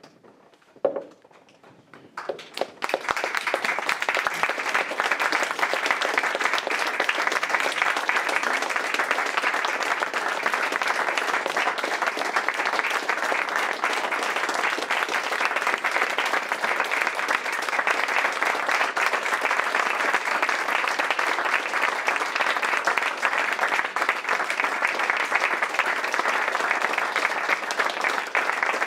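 Audience applause: a single short sound about a second in, then the audience starts clapping about two seconds in, building within a second to dense, steady applause that lasts to the end.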